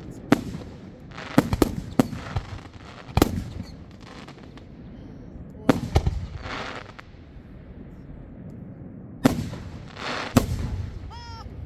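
Fireworks going off: sharp bangs, about nine of them, some in quick clusters of two or three, several followed by a crackling, hissing tail.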